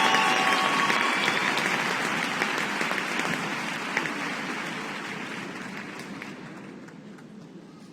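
Large audience applauding in an ice arena, the clapping steadily dying away to a few scattered claps.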